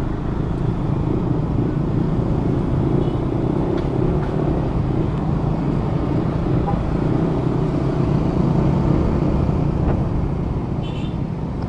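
Steady low rumble of a scooter engine running, with surrounding road traffic.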